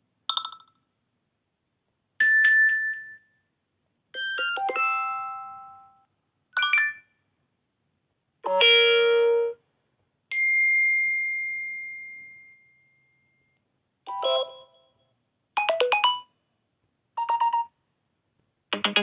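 iPhone notification tones played one after another, about ten short chimes and jingles separated by brief silences. One is a single high ping that fades out over about three seconds.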